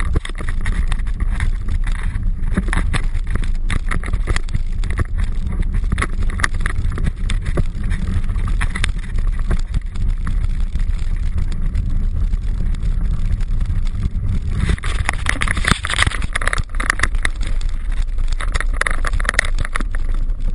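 Mountain bike rolling fast over a dirt trail, heard from a camera mounted on the bike: a steady low rumble of wind and tyre noise on the microphone, with frequent knocks and rattles as the bike goes over bumps. The rushing gets brighter and harsher about fifteen seconds in.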